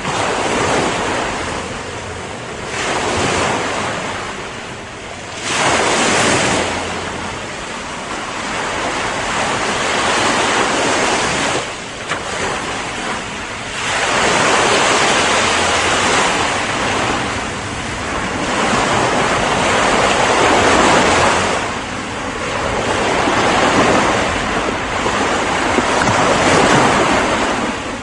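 Ocean surf: waves breaking and washing in, the noise swelling and falling away every few seconds.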